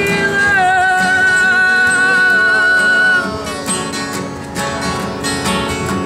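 Acoustic guitar strummed with a singing voice holding one long note that wavers slightly. The note stops about three seconds in, and the guitar strumming carries on.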